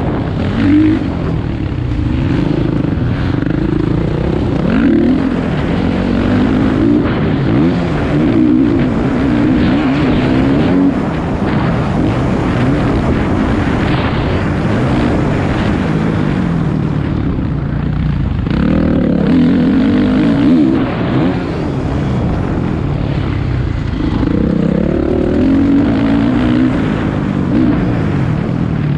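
Motocross motorcycle engines revving on a dirt track, the pitch climbing and dropping over and over as the throttle opens and closes. Louder passages come about 19 and 25 seconds in.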